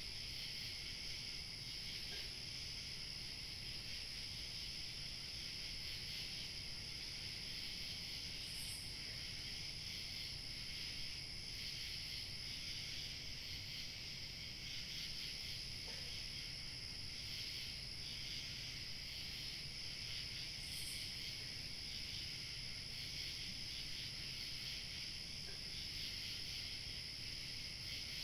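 A chorus of crickets chirping steadily, with a thinner, higher insect trill above it that drops out for a couple of seconds midway. A faint low rumble of light wind sits underneath.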